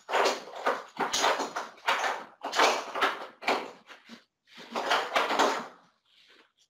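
Straps and clips on a plastic spine board being handled: a run of rustling, clattering bursts that stops about six seconds in.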